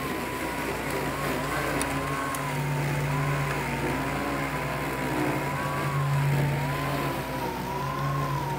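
LYMOW One tracked robot lawn mower running as it mows, its battery-powered blade and track motors giving a steady whine with a slowly wavering pitch over a low, even hum.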